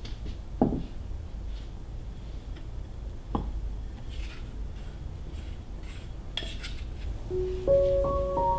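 Kitchen utensils knocking and scraping against a mixing bowl while dough ingredients are prepared: a few sharp knocks with soft scraping between them. Gentle music comes in near the end.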